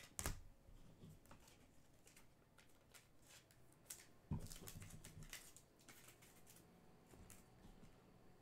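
Faint handling of trading cards: soft rustles and small clicks as cards are slid into plastic sleeves, with a sharper click just after the start and a soft knock about four seconds in.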